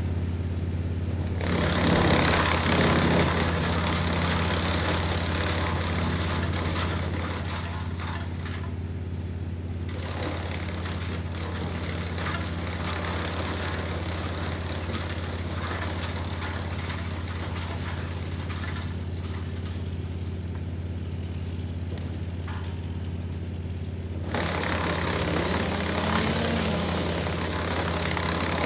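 Wood chipper: its engine runs with a steady low drone. Two long spells of wood being fed through and chipped lie over it, one starting a second or two in and lasting about eight seconds, the other starting near the end.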